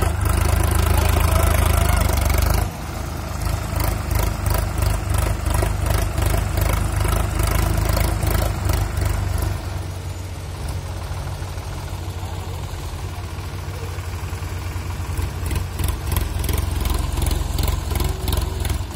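Sonalika DI 47 RX tractor's diesel engine running under load, pulling a fully loaded trolley through mud. The engine is loud for the first few seconds, drops suddenly about three seconds in, eases further around ten seconds in, and rises again near the end.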